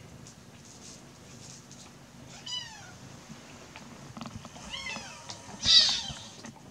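Kitten mewing in short, high, falling cries: one about two and a half seconds in, several close together a little before the end, then a loud, harsh shriek near the end.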